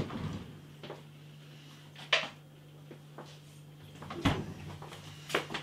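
Refrigerator door and food packaging being handled: a few separate clicks and knocks, with a dull thud about four seconds in, over a steady low hum.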